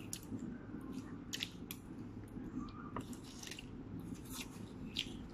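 Metal spoons scooping and scraping through fried rice on takeaway wrapping, with a handful of short sharp clinks scattered through and faint chewing.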